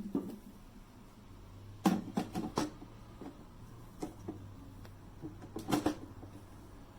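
Handling noises: a knock at the start, a quick cluster of clicks and knocks about two seconds in, and another short cluster near the end, in a quiet room.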